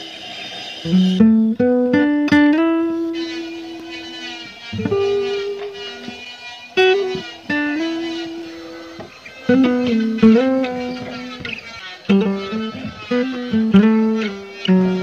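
Background music: a plucked electric guitar melody with picked notes that ring and fade, starting about a second in.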